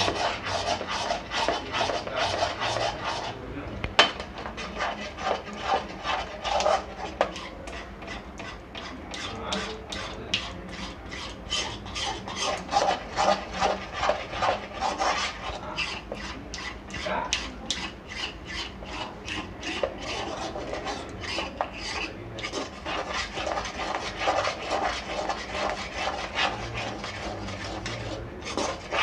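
A metal spatula scraping round a metal kadhai in quick strokes, about three a second, with a couple of brief pauses and one sharp click. It is stirring sugar syrup with ghee, off the heat, as it thickens and crystallises into grainy tagar.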